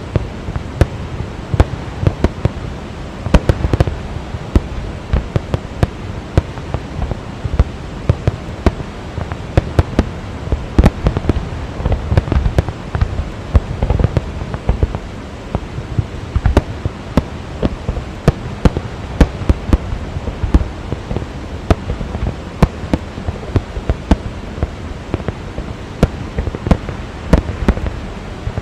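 A fireworks display going off in many irregular, sharp bangs, a few each second, over the steady rush of the Rhine Falls.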